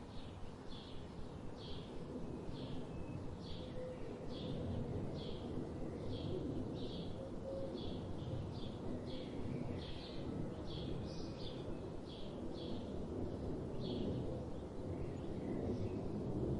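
A songbird repeating a short, high chirp about twice a second, over a steady low rush of a river.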